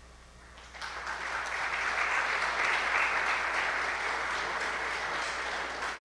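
An audience applauding. The clapping starts about a second in, builds to a steady level and cuts off suddenly at the end.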